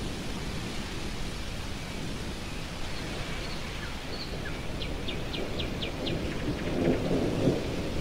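Low rumble of distant thunder under stormy wind, swelling about seven seconds in. A blackbird sings a few high notes in the middle, then a quick run of about six sharp notes.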